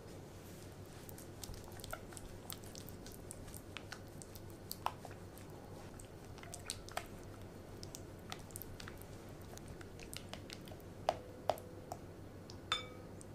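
Silicone spatula stirring thick chocolate ganache and melting butter in a glass bowl: soft sticky squelches and small clicks throughout, with a few sharper knocks of the spatula against the glass in the last few seconds, the last one ringing briefly.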